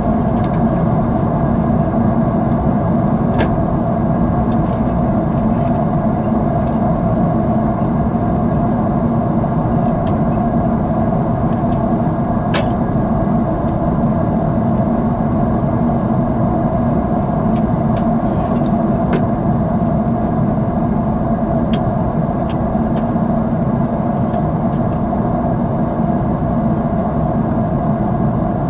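Steady cabin noise of a jet airliner in flight: a constant drone of engines and rushing air, with a few faint clicks.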